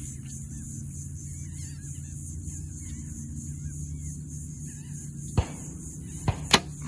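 Three sharp gunshot cracks near the end, the last the loudest, from a neighbouring gun range. Under them runs a steady low rumble with faint bird chirps.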